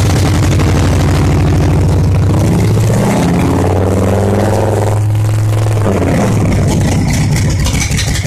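Victory 92-cubic-inch V-twin engine running loudly just after its first start following a rebuild, with its throttle body open and no air cleaner fitted. Engine speed rises a little about three seconds in and settles back down near six seconds.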